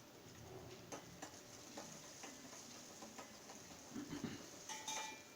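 Metal spoon stirring a tempering of turmeric, chillies and curry leaves frying in oil in a pan: light scattered clicks and scrapes against the pan. A brief tone sounds near the end.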